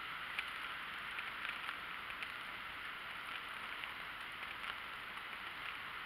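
Light patter of water drops, scattered faint ticks over a steady hiss, as from wet snow melting and dripping.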